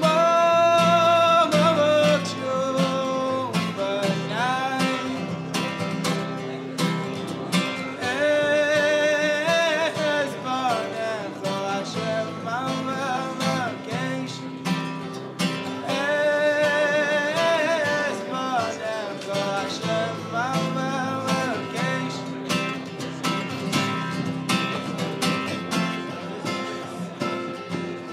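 A man singing with long held, wavering notes to his own strummed steel-string acoustic guitar. After about twenty seconds the voice stops and the guitar plays on alone.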